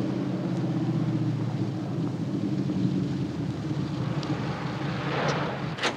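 GMC Vandura van engine running steadily as the van drives up and pulls in to stop, with a brief knock near the end.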